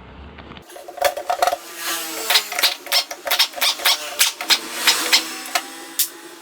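Irregular sharp metallic clicks and clinks of hand tools and metal parts being worked during disassembly of an automatic transmission, several a second, with a faint ringing between strikes.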